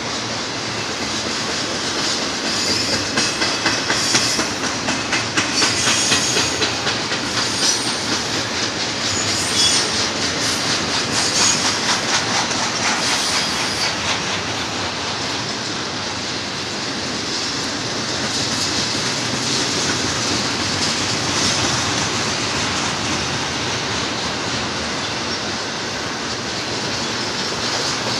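Double-stack container well cars of a Union Pacific freight train rolling past, their steel wheels clicking over the rails in a rhythm that is strongest in the first half. A thin, high wheel squeal comes and goes in the first third.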